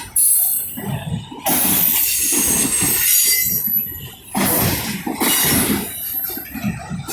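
Freight cars rolling past, a loud, uneven rumble of steel wheels on rail that surges and dips, with a thin, high wheel squeal about two seconds in.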